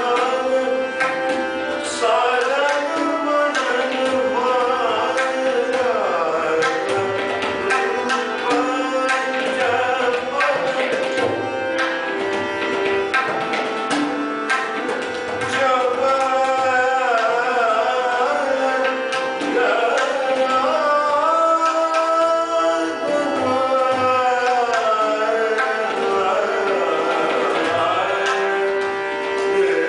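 Harmonium playing held and moving notes under a singing voice that glides and ornaments the melody, with frequent tabla strokes: Indian classical vocal music.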